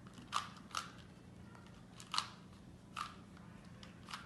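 Plastic Rubik's Cube layers being twisted by hand to undo the trick: about five sharp clicks, irregularly spaced roughly a second apart.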